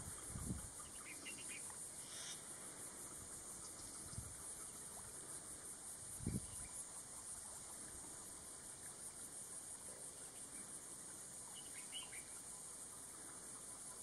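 Steady high-pitched insect chorus with a fast, even pulse, with a few faint short chirps and two dull low thumps, about half a second and six seconds in.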